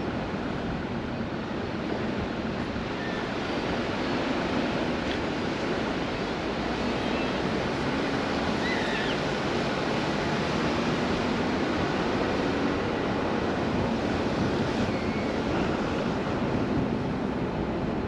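Ocean surf washing steadily onto a sandy beach, with wind, and a few faint high chirps.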